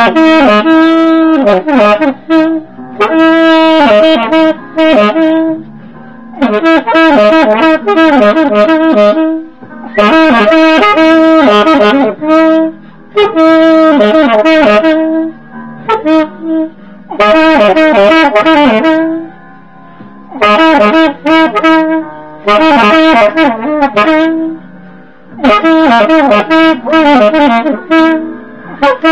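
A 1920s Buescher True Tone low-pitch alto saxophone playing a slow jazz melody in phrases of a few seconds each, with short breaths between them.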